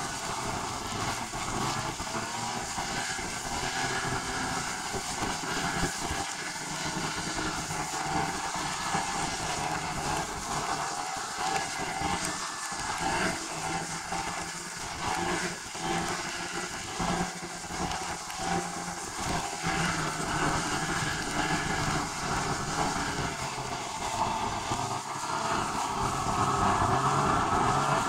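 A moving vehicle's steady running noise, growing louder near the end.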